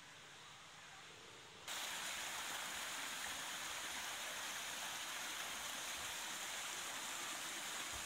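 Water splashing and running steadily where it spills from pebble-covered artificial rocks into a shallow pond. It comes in suddenly about one and a half seconds in, after faint outdoor quiet.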